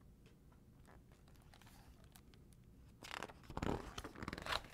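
Faint room tone for about three seconds, then the page of a large hardcover picture book being turned: a second or so of paper rustling with a few sharper crackles.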